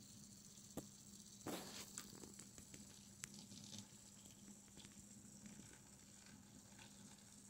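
Near silence with hiss: an N-scale model diesel locomotive and its freight wagons running on the track, a faint steady hum with a few soft clicks, the loudest about one and a half seconds in.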